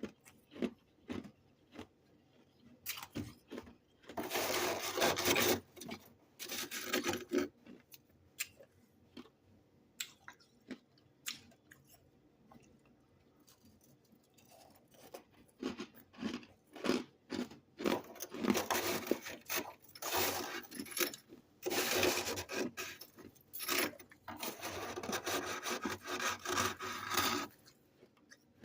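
Freezer frost being scraped: rough scraping strokes in bursts, with a long busy run of scraping in the second half and scattered clicks in the pauses.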